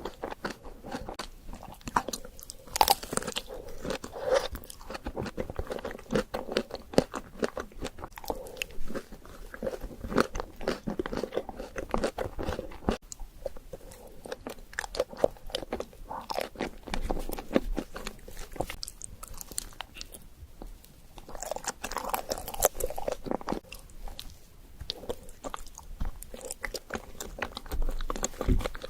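Close-miked eating: a person biting and chewing food, with many short crunchy crackles throughout.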